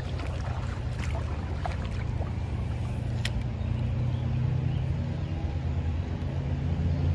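Creek water running over a shallow riffle: a steady low rush, with one sharp click about three seconds in.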